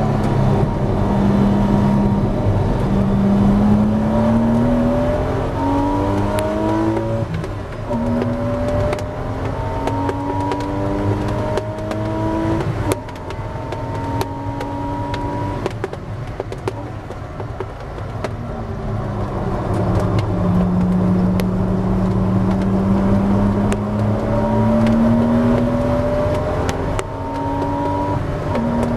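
Porsche 986 Boxster S 3.2-litre flat-six race car heard from inside the cabin, accelerating hard with the engine note climbing and dropping back at several upshifts. About halfway the engine eases off for a corner, then pulls again in one long steady climb.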